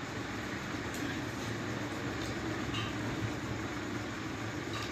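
Steady noisy background rumble and hiss, with a few faint clicks of chopsticks and cutlery against plates.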